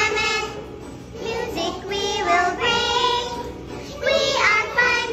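Music with a child's singing voice, a song sung in phrases.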